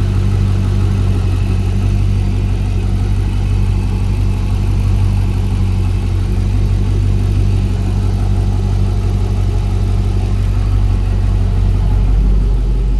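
C5 Corvette's LS1 5.7-litre V8 idling steadily and smoothly, freshly rebuilt and running well.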